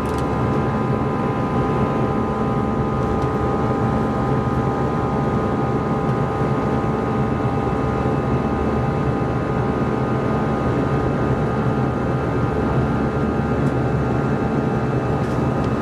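Steady cabin noise inside an Airbus A320 in flight: a constant deep rumble of engines and rushing air, with several steady whining tones on top.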